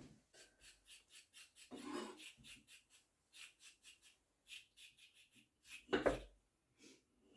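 Vegetables being prepared by hand: a carrot scraped with short, rasping strokes a few times a second, with a knife cutting on the table and a louder knock about six seconds in.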